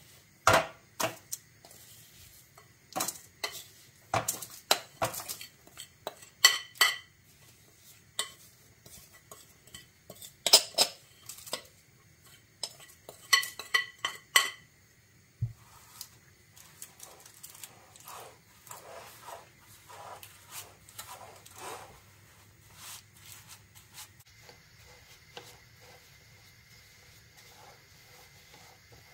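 Metal spoon knocking and scraping against a glass mixing bowl as buttered biscuit crumbs are scooped out, with sharp ringing clinks. From about halfway, softer scraping and tapping as the back of the spoon presses the crumb base down into a metal cake tin.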